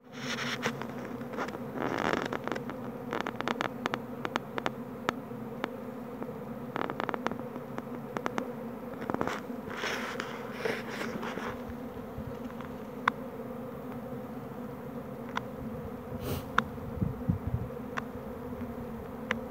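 A honeybee swarm in flight: the steady hum of many bees' wings. Scattered sharp clicks and crackles come through it, thickest in the first half.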